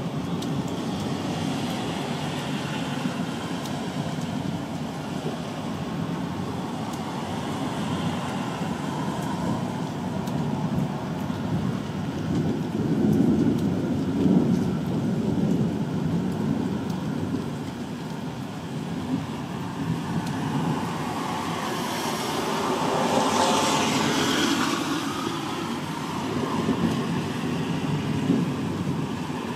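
Distant thunder rumbling on without a break, swelling a little in the middle. About two-thirds of the way through, a broader swell with a hiss in it rises and fades.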